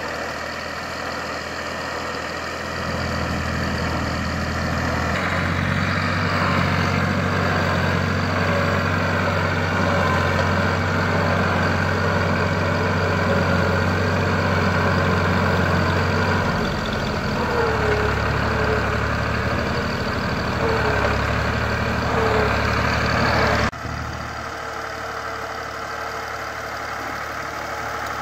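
Ford 4610 tractor's three-cylinder diesel engine running steadily under load, pulling a trolley heavily loaded with wood. The engine sound steps up a few seconds in, shifts again past the middle, and changes abruptly about three-quarters of the way through.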